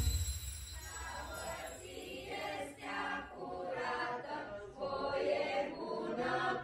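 A group of teenage students singing together as a choir.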